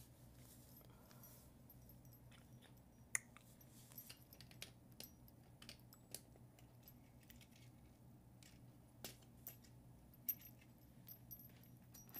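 Plastic Lego pieces being handled: faint, scattered small clicks and rattles, the sharpest about three seconds in, over a steady low hum.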